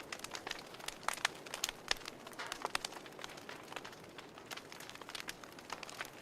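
Fireplace crackling: a steady low hiss with irregular sharp pops and snaps.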